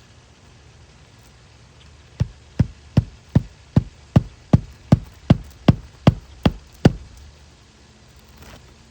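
Hammer blows: about a dozen sharp strikes in a quick, even rhythm of two or three a second, lasting about five seconds, starting a couple of seconds in.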